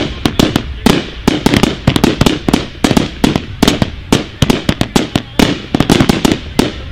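Fireworks going off in a rapid barrage: a dense, irregular run of sharp, loud bangs, several a second, with no let-up.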